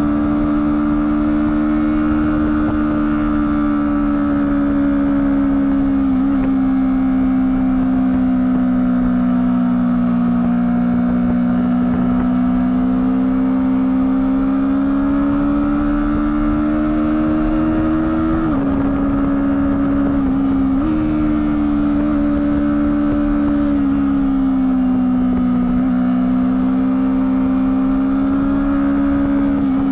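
Honda CBR250RR engine running through its stock exhaust, held at fairly high revs with the pitch slowly rising and falling. The pitch drops sharply about two-thirds of the way through and jumps back up a couple of seconds later.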